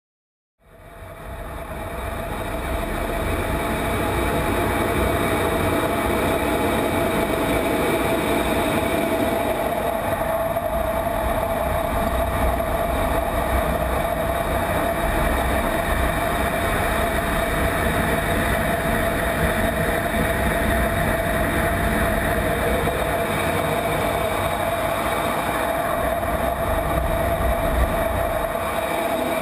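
Inside the cockpit of an F-16 fighter jet in flight: a steady rush of single turbofan engine and airflow noise with a constant whine and low rumble, fading in over the first couple of seconds.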